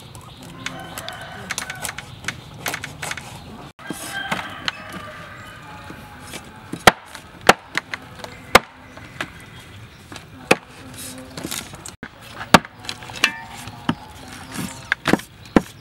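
Knives chopping and cutting frogs on banana leaves over a hard surface: a series of sharp, irregular knocks, sparse at first and more frequent and louder from about halfway through.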